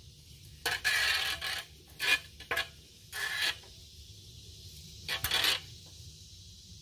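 Five short bursts of metal scraping and rubbing as a gloved hand screws a threaded air-hose adapter into a spark plug hole.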